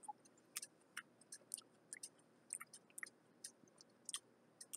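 Faint chewing of a cherry Kool-Aid pickle slice: short crisp clicks at an uneven pace, a few a second.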